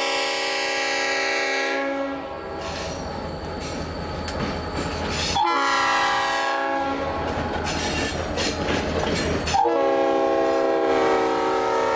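Leslie five-chime locomotive air horn blowing its chord in three long blasts: one ending about 2 s in, one from about 5.5 to 7 s whose notes bend as it sounds, and one from nearly 10 s on. A diesel locomotive rumbles between the blasts.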